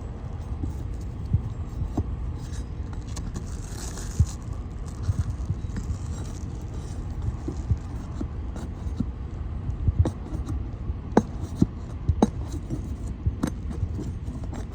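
Roofing nails being pried out from under asphalt shingles: irregular scraping with scattered sharp metallic clicks and knocks, a cluster of the sharpest about two-thirds of the way through.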